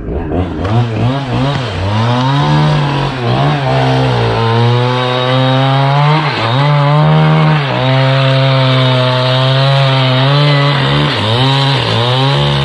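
Powered saw cutting through a log, its motor running hard with a steady note that sags in pitch several times as the blade takes load.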